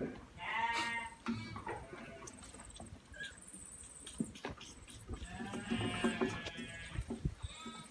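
Goat kids bleating: a quavering call about half a second in and another around six seconds in, with light clicks in between.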